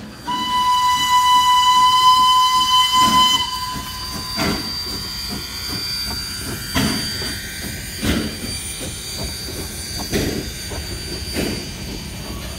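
Small steam locomotive blowing its steam whistle once, a steady single-note blast held about three seconds. It then rolls past hissing steam, with its coach's wheels knocking over the rail joints every second or two.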